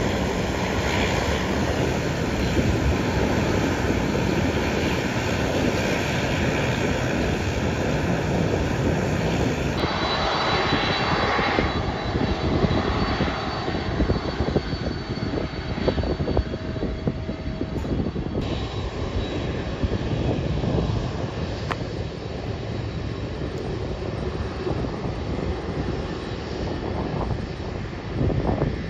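Jet engine noise from an Air Canada Airbus A330-300 at takeoff power on its roll, heard from afar; after a sudden cut about ten seconds in, the engines of a Japan Airlines Boeing 767-300ER running at low taxi power, a steadier rumble with a faint whine.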